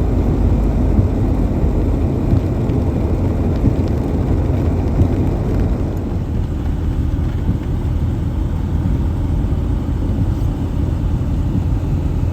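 Steady, loud low rumble of a vehicle running, easing off slightly about six seconds in.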